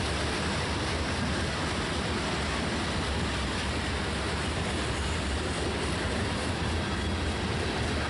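Freight train of covered hopper cars rolling past: a steady low rumble with the rattle of wheels on the rails.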